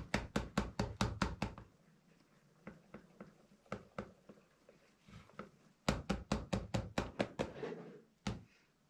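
Wire whisk beating batter in a glass bowl, clicking against the bowl about six times a second. The beating drops to faint, scattered ticks for about four seconds, then picks up again briskly before one last click.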